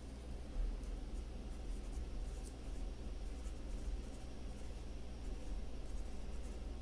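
Pen writing on lined spiral-notebook paper: short scratching strokes as a few words are written out, over a low steady hum.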